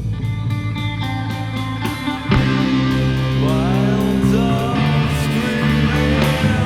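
Stoner rock band playing an instrumental passage: electric guitar, bass and drums, with a steady cymbal beat over held low chords. A heavier chord comes in about two seconds in, and a lead line with bending, sliding notes follows.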